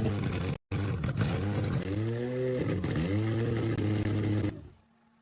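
Rebuilt supercar engine revving in repeated throttle blips, its pitch climbing and falling several times. The sound cuts out for an instant just over half a second in, then stops near the end.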